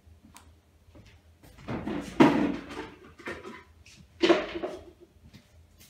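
Household handling noise out of shot: knocks and rustling as things are moved about. It comes in two bouts, the first and loudest about two seconds in, a shorter one about four seconds in.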